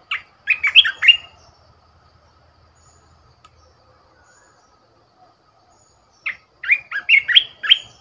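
A bulbul, the caged decoy bird, singing two short phrases of quick, sliding whistled notes, one at the start and another about six seconds later.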